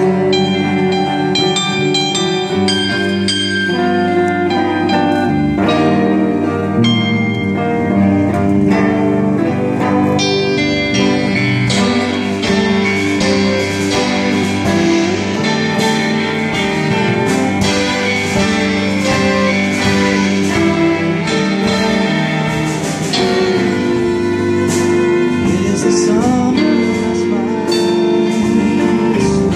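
A live band of violins, cello, electric and acoustic guitars and keyboard playing a song together, with singing.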